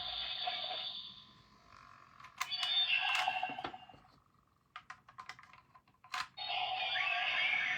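Electronic sound effects from the small speaker of an Ultraman Blazar transformation bracelet toy (Blazar Brace), stopping and starting, with a run of sharp clicks about five seconds in before the effects start again.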